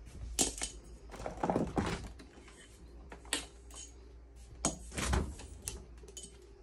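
French-door refrigerator doors being pulled open and handled: a series of knocks, thuds and light rattles as the doors unseal and swing.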